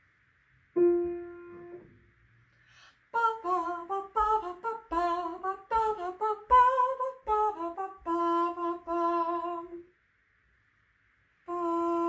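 One piano note struck and left to ring, then a woman singing a short marching tune on "bum" syllables, with a few low thumps under it. Near the end she holds one hummed note on the same pitch as the piano note.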